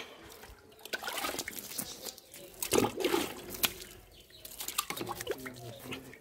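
Wet hand scrubbing a cow's hide with water, in irregular splashes, wipes and drips, as dung is washed off the hindquarters and legs.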